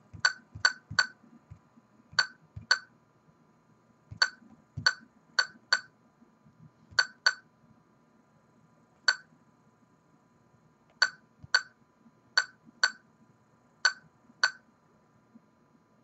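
Laser projection keyboard giving its clinky keystroke sound, one short identical clink for each key pressed. About eighteen of them come in uneven little runs as a word is typed.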